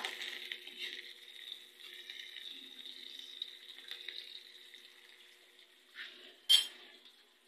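Sliced onion and garlic sizzling in oil in an aluminium wok: a steady crackling hiss that fades after about five seconds. One sharp click, the loudest sound, comes shortly before the end.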